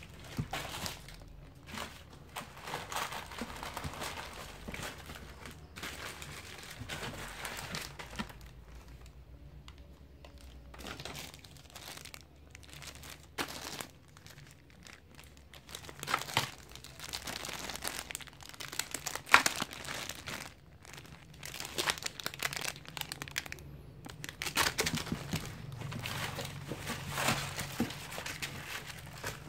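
Plastic bags and wrapping crinkling and rustling in irregular bursts as toys in bags are handled and pulled out of a cardboard box, with one sharp click a little past the middle.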